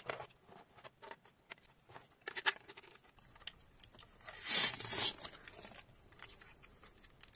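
Small clicks and taps of a clear plastic 2.5-inch hard-drive enclosure being handled, with a louder rasping crackle of plastic film about four and a half seconds in, which fits protective film being peeled off the case.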